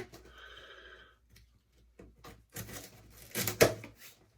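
A cardboard box being cut open with a stiletto knife and handled: a brief squeak in the first second, then rustling and clicks of cardboard and packing with a sharp knock about three and a half seconds in.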